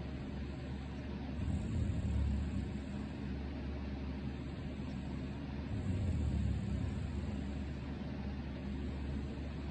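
A person snoring: two long, deep snores about four seconds apart, over the steady hum of an electric fan.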